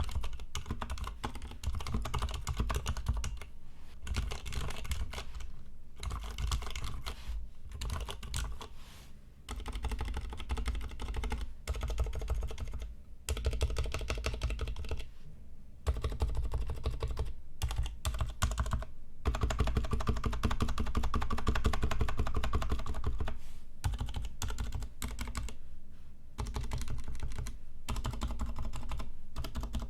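Ducky x Varmilo Miya Pro mechanical keyboard with unlubed Cherry MX Silent Black switches and no case foam, typed on in fast runs of keystrokes broken by short pauses every few seconds.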